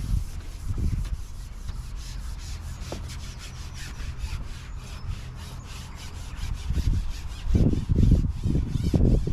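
Rhythmic rubbing or scraping, about four strokes a second, over a steady low rumble that grows heavier near the end.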